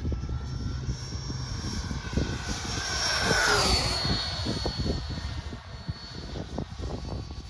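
Freewing Stinger 90 RC jet's electric ducted fan whining as the model flies past: the whine swells to its loudest about three and a half seconds in and drops in pitch as it goes by, then fades. Wind gusts buffet the microphone.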